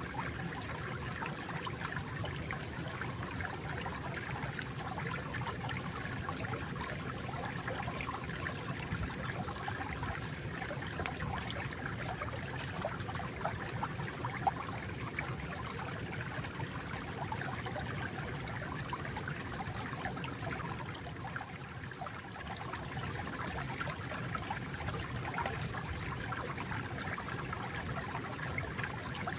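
Water flowing steadily in a small stream, a continuous babbling trickle with many small splashes.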